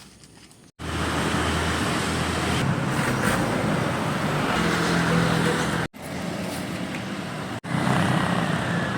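Steady road traffic noise, a dense rush with a low engine hum, starting abruptly about a second in and broken by two brief dropouts near the end.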